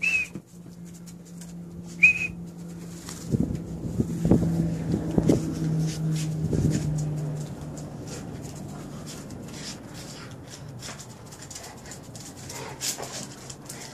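Two short, high chirps about two seconds apart, followed by a run of knocks and handling noises over a low steady hum that stops about seven and a half seconds in, then quieter scattered ticks.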